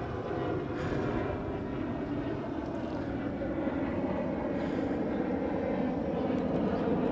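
Wind buffeting a clipped-on lavalier microphone, together with road and tyre noise, while riding a bicycle at speed; the sound is a steady rumbling rush that grows slowly louder.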